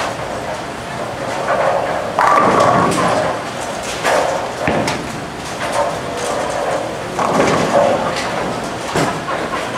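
Bowling alley sounds: a ball rolls down the lane and crashes into the pins about two seconds in, the loudest moment, with further pin crashes and thuds from other lanes and people talking.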